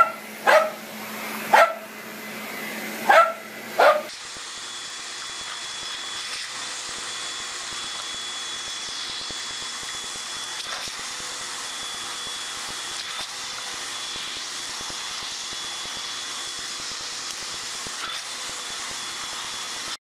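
A dog barks sharply four times, then a vacuum cleaner runs steadily with a thin high whine over its motor and airflow noise.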